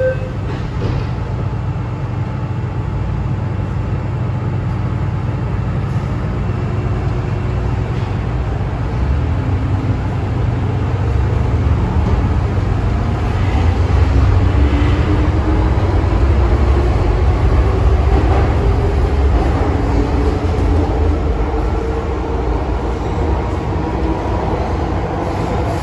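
MTR M-train electric multiple unit running through a tunnel, heard from inside the passenger car: a steady low rumble of the wheels on the track. From about ten seconds in, a traction motor whine rises in pitch as the train picks up speed.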